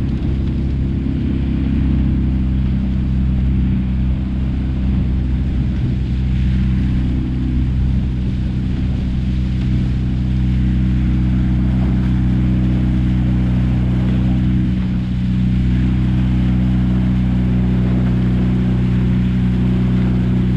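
Motor launch's engine running steadily at a constant cruising speed, with a low, even hum.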